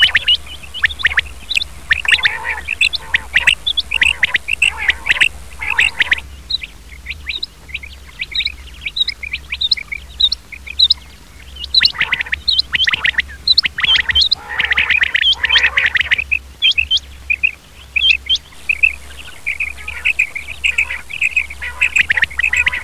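Male quail (batair) calling: quick, short chirping notes repeated over and over, at times crowding into dense runs. A steady low hum runs underneath.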